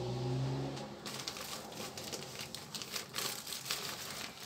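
Thin black plastic pot crinkling and potting soil rustling as a hand digs in to loosen compacted soil, an irregular crackle starting about a second in.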